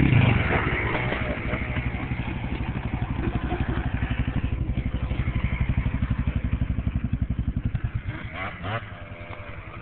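ATV engine running close by: loudest at the start as a quad passes close, then running steadily at low speed with an even pulse, fading about eight seconds in.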